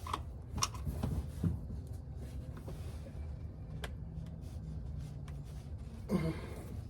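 Scattered clicks and scraping of a wrench being worked on a very tight fitting under a car during an oil change, over a steady low rumble. A short grunt-like voice sound comes near the end.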